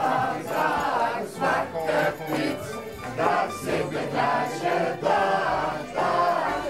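A group singing a Sinterklaas song together, with music.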